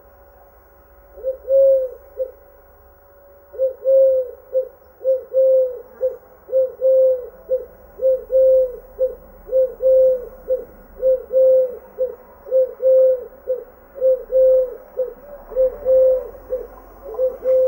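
Eurasian collared dove singing its low three-note coo-COO-cook song. It gives one phrase about a second in, then repeats the phrase over and over without a break from about four seconds on.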